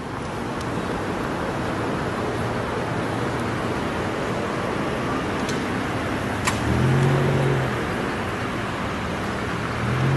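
Steady rushing background noise of street traffic, with a short low pitched sound rising and falling about seven seconds in.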